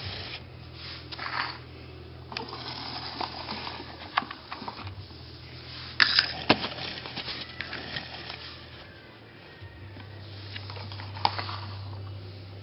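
Scattered light clicks and knocks of digital thermometers, probe wires and cups being handled on a stone countertop, over a steady low hum. The sharpest knock comes about six seconds in.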